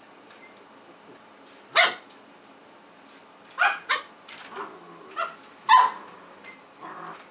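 Puppies barking in short, high yaps as they play through a baby gate. One bark comes about two seconds in, then a quicker run of half a dozen barks and yips.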